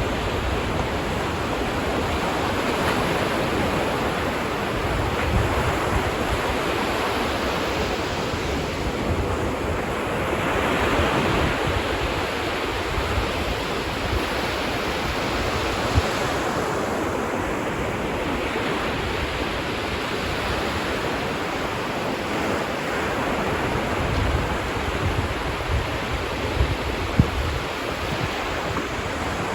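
Ocean waves washing onto a beach, a steady surf wash that swells and eases slowly, with wind buffeting the microphone in a few brief low thumps.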